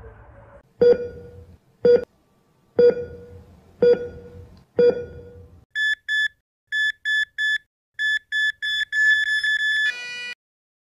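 Five heavy thuds about a second apart, then heart-monitor beeps that come quicker and quicker until they run together and end in a short flatline tone: a patient's heart racing and then stopping.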